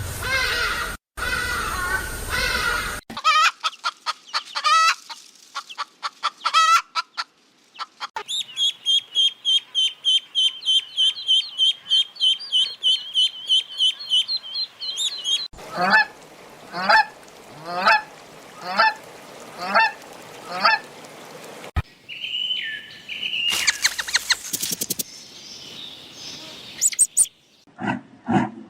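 A run of different farm-animal and bird calls one after another. In the middle comes a fast string of high chirps lasting several seconds, followed by a regular series of pitched honk-like calls about twice a second.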